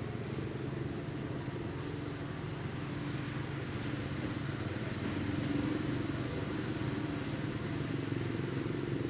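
Steady low rumble of a motor vehicle's engine running, with a faint high thin whine coming and going above it.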